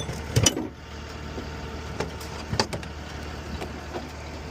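A few sharp knocks and clanks of tools and equipment being moved while tidying up, over a steady low vehicle engine hum.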